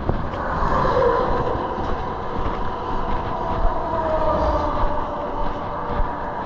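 A vehicle passing close by: a steady rumble with a faint whine that falls slowly in pitch as it goes by.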